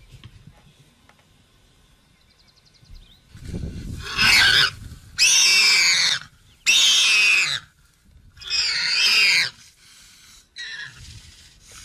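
A warthog screaming in distress as a lion bites it: four loud, high-pitched squeals of about a second each, starting about four seconds in, then fainter short squeals near the end.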